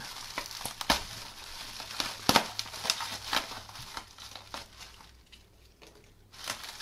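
Clear plastic bag and bubble wrap crinkling and rustling as hands pull them open, with a few sharp crackles. It goes quieter for about a second near the end, then the crinkling starts again.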